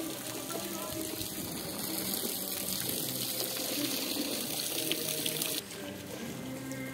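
Steady rush of running and splashing swimming-pool water. The brighter hiss drops away suddenly about five and a half seconds in.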